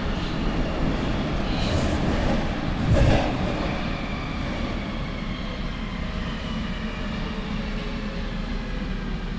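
Nuremberg U-Bahn DT1 car running in a tunnel, heard from inside the passenger compartment: a steady rumble of wheels and running gear, with one heavy knock about three seconds in. A faint high whine sounds from about four seconds on.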